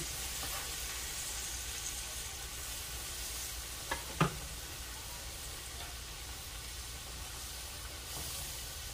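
Skillet of pork gravy sizzling steadily as fried neck bones are laid back into it. Two sharp knocks come close together about four seconds in.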